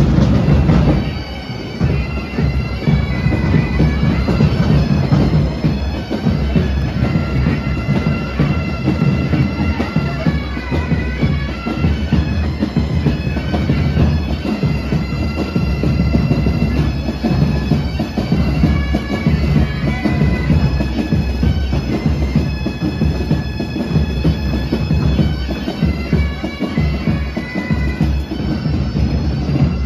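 Highland bagpipes of a marching pipe band playing a march tune together over their steady drones.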